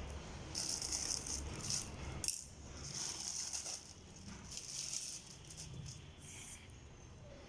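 Rustling and rattling as packaging and accessories are handled, in short bursts of crinkling with a few light clicks.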